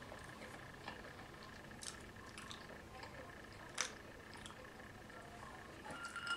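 Faint wet chewing and mouth clicks from someone eating, with a few short sharp clicks, the loudest about four seconds in. Right at the end a drinking glass clinks as it is picked up off the table.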